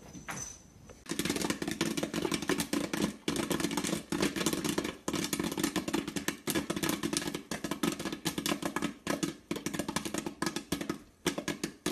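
Electric stir-type popcorn popper running: kernels popping in quick, irregular cracks over the steady hum of its motor.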